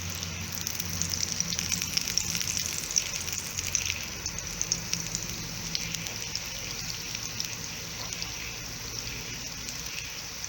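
Butter melting and sizzling in a pan on the stove, a steady crackle with scattered small pops, busiest in the first few seconds.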